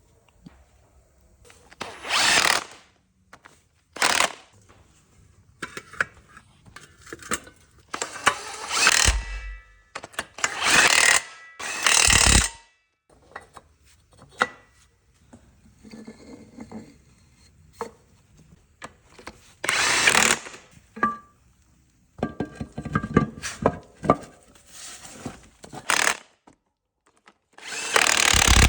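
A power tool run in about a dozen short bursts, each half a second to a second long, with pauses between.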